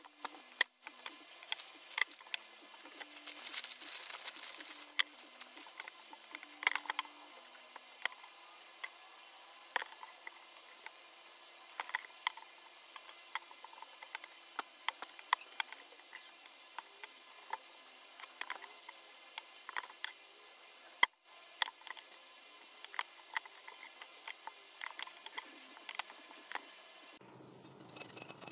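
Kitchen knife slicing a block of tikoy (sticky rice cake) on a cutting board: scattered small clicks and taps of the blade meeting the board and the sticky cake, with a longer scratchy stretch about three seconds in.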